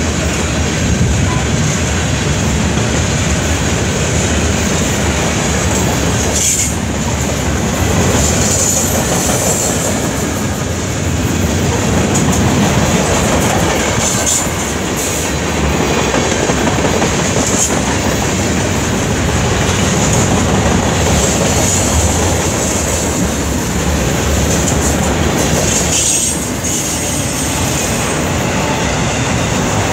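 Freight train passing close at speed: a steady rumble and rattle of loaded cars' wheels on the rail, with clicking over the rail joints. A high-pitched wheel squeal comes and goes every few seconds.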